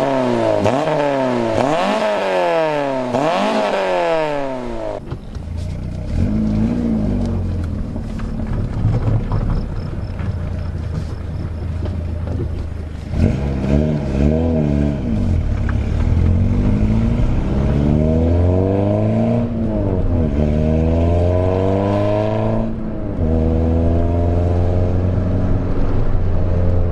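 Peugeot 206 fitted with a Magnaflow exhaust, first heard from outside the car, its engine note rising and falling as it accelerates. Then, from inside the cabin, a steady low exhaust drone that rises in pitch several times as the car pulls through the gears, dropping back at each shift.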